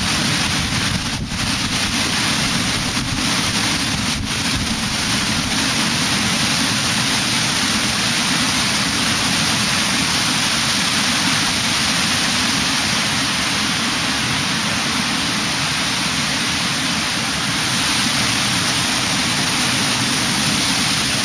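Heavy tropical-storm rain pouring down steadily on trees and ground, a loud, even hiss.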